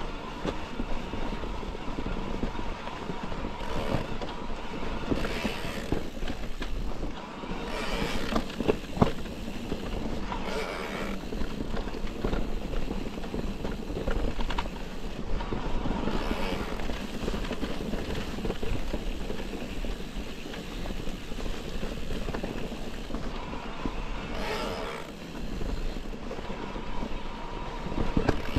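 Electric mountain bike being ridden over a rough trail: tyres rumbling and scraping on stony ground, with irregular rattles and knocks from the bike, and a faint steady whine that comes and goes.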